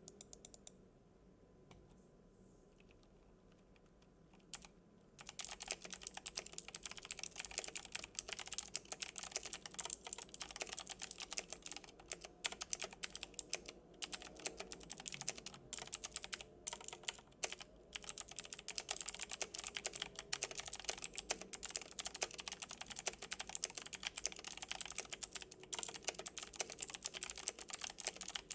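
Typing on a Logitech G Pro X mechanical keyboard with clicky blue switches: a few keystrokes at the start, a pause of about four seconds, then fast, continuous typing from about five seconds in.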